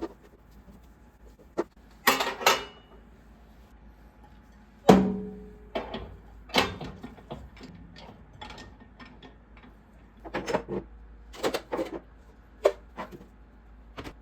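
Irregular clicks, knocks and clatter of household items being handled and set down, with one louder knock about five seconds in that rings briefly.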